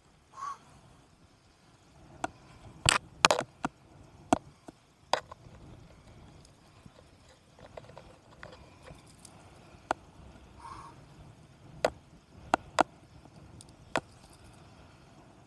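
Fishing pliers clicking and knocking against a lure's treble hooks while unhooking a caught sea bass: sharp, irregular metallic clicks, bunched together about three seconds in. Two brief call-like tones sound once near the start and again about eleven seconds in.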